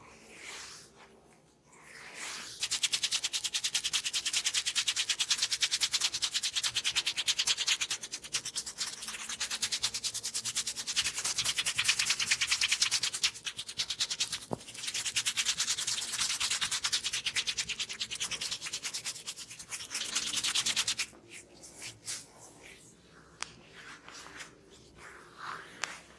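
Fingertips rubbing rapidly through hair on the scalp: a fast, even scratching rustle that starts a couple of seconds in, dips briefly midway and stops a few seconds before the end.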